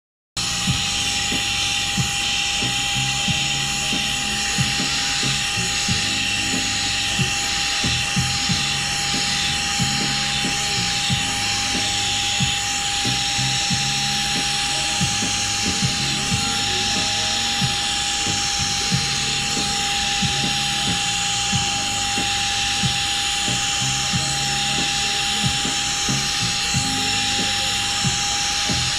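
Small single-motor cordless handheld vacuum running steadily with a high whine and a rush of air, fitted with a brush-tipped nozzle for dusting a model railroad building. It starts suddenly just after the opening.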